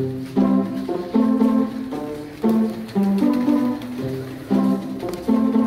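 Background music: a melody of plucked-string notes, each note starting sharply and fading, about two notes a second.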